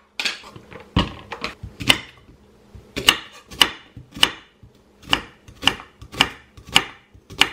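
Knife knocking on a cutting board during kitchen prep. There is a heavy thump about a second in, then a string of sharp knocks at roughly two a second.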